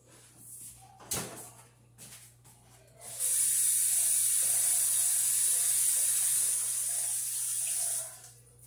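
A thud about a second in as the oven door is shut, then a kitchen faucet runs into the sink in a steady hiss for about five seconds and is turned off.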